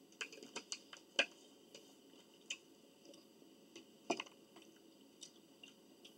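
Irregular small clicks and taps of eating at the table, with chewing. The two loudest clicks come about a second in and about four seconds in.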